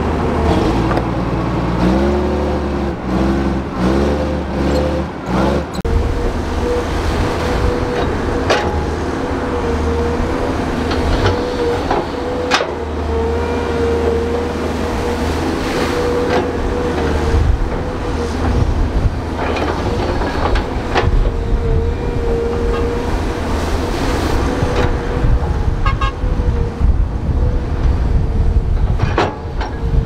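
Heavy diesel earthmoving machine running under load, with a steady whine over the engine's rumble and scattered metallic clanks and knocks. About two to five seconds in, the engine's pitch rises and falls several times.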